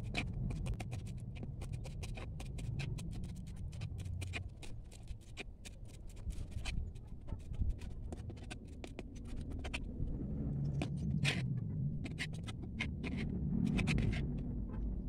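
Kitchen knife chopping celery leaves and spring onion on a plastic cutting board: quick, rapid taps of the blade on the board, packed close for the first half and then coming in sparser bursts, over a steady low hum.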